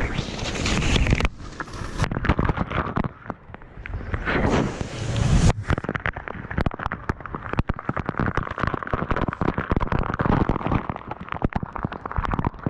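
Fast whitewater pouring over rock and splashing onto a body-worn action camera: a loud rushing noise full of sharp crackles as water strikes the camera housing, swelling and falling in strength.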